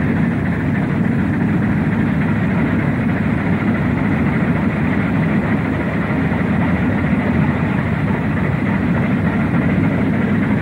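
Steam locomotive working hard as it passes, its exhaust and running gear making a steady, loud, dense noise with no distinct beats standing out.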